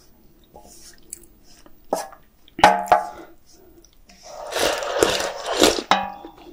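A stainless steel pan knocks and rings twice as it is handled and lifted, then broth is slurped loudly straight from the tilted pan.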